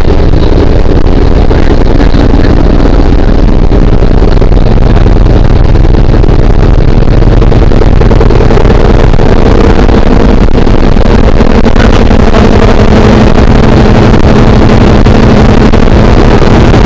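Loud, steady drone of the jump plane's engine heard from inside the cabin, its tone shifting slightly about twelve seconds in.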